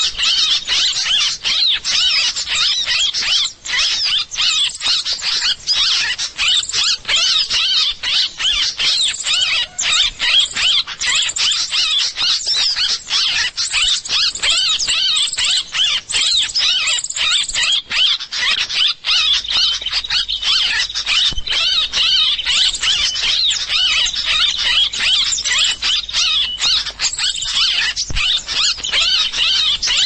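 Bird-call lure recording (suara pikat) played loudly through a speaker: a dense, unbroken stream of rapid high-pitched chirping and twittering, meant to draw small birds onto the lime-coated trap twigs.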